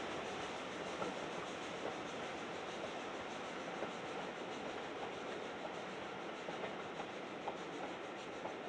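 Steam-hauled train running steadily, an even rumbling noise with a few light clicks.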